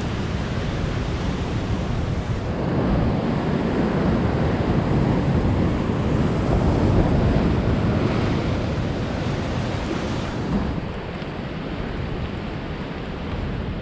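Ocean surf washing over a rocky shore, mixed with wind rumbling on the microphone. The noise jumps up abruptly about two and a half seconds in and drops back about ten and a half seconds in.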